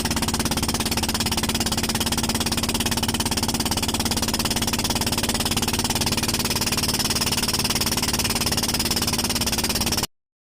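Motorized bangka boat engine running steadily at a constant speed, loud and close, with a fast even pulse; it cuts off abruptly near the end.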